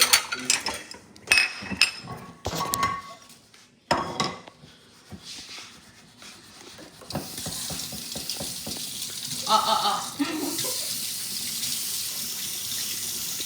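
Plates and cutlery clattering in the first few seconds, then a kitchen tap running steadily into the sink from about halfway through.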